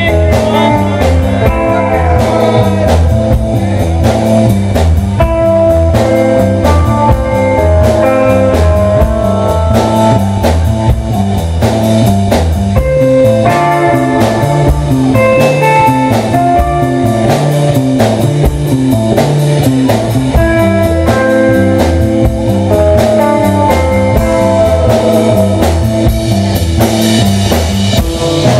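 A live rock band playing an instrumental passage: electric guitar lines over a steady drum-kit beat and a low bass line, loud and continuous.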